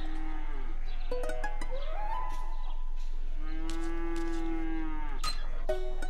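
Cartoon sound effect of a cow mooing: one long, drawn-out moo in the second half, rising, held, then falling away, with shorter tones before it.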